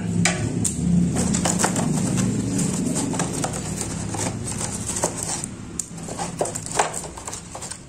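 Black plastic toy train track sections clicking and clattering against each other as they are handled and lifted out of a polystyrene packing tray, with a low hum under the first few seconds.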